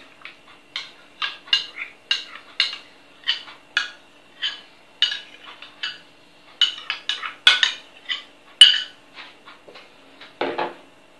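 A spoon scraping and tapping against a glass bowl as thick sour cream is scooped out, making a run of short clicks about twice a second. A duller knock comes near the end.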